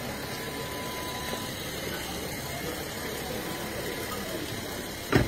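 Steady outdoor background noise with no clear voices, broken near the end by one sharp, loud thump.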